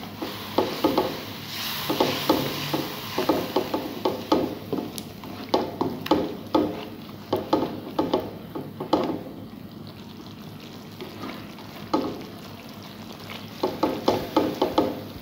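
Slotted spatula scraping and stirring a thick spice-and-tomato masala in a metal kadai, in short irregular strokes, over a faint sizzle of oil. The stirring pauses for a few seconds past the middle and starts again near the end.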